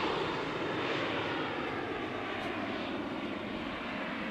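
Twin turbofan engines of a Cessna Citation CJ2 business jet after a pass, receding with a steady rush and a faint falling whine, slowly growing quieter.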